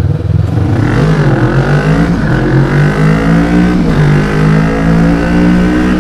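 Kawasaki Vulcan S's 649 cc parallel-twin engine accelerating away through the gears: the pitch climbs, falls back at an upshift about two seconds in and again near four seconds, then holds steady.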